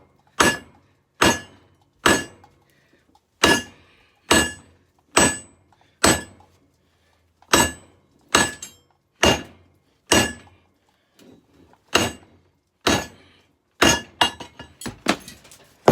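Hammer blows on a hot katana blade against an anvil, about one strike a second, each ringing out metallically: forging the second side of the blade. Near the end the strikes give way to quicker, lighter taps.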